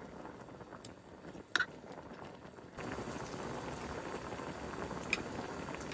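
A pot boiling, a steady bubbling hiss that comes up abruptly about three seconds in, with a couple of light clicks.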